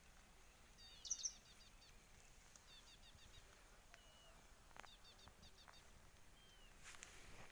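A small songbird chirping faintly: short runs of quick high notes repeated about every two seconds, the loudest about a second in, with a few single sliding whistles between them.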